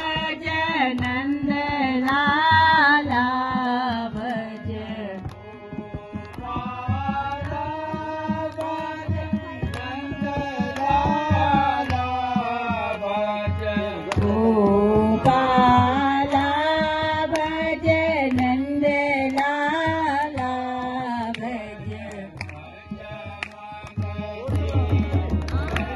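Group devotional singing (bhajan) accompanied by a harmonium, with tabla and dholak drums keeping the rhythm. Near the end the singing drops away and the drums come forward.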